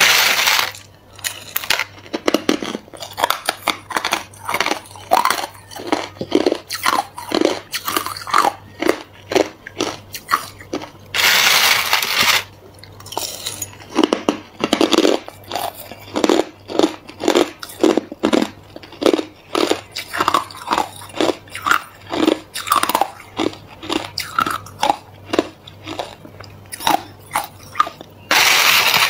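Crushed clear ice being bitten and chewed: crisp crunches in quick succession, a few each second. Twice, once about midway and again near the end, comes a second-long rattling scrape as a metal spoon scoops more ice from the plastic tub.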